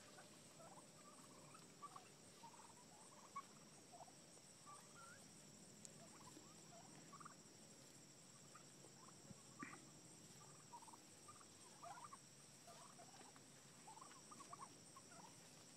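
Near silence: faint outdoor ambience with scattered soft chirps and a thin, steady high-pitched tone.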